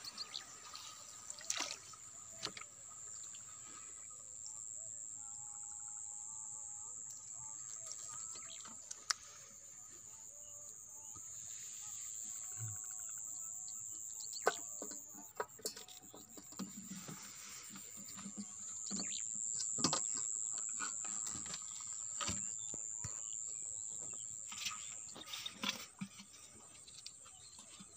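Quiet handling sounds of fish and plant stems in a boat: scattered clicks, knocks and small water splashes over a steady high-pitched whine, with faint bird chirps.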